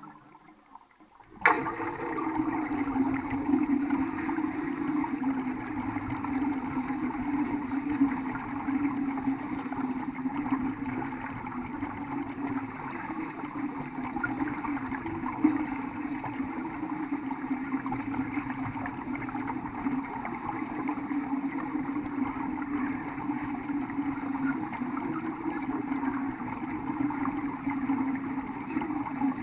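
Welding arc struck about a second and a half in, then burning steadily with an even, noisy sizzle.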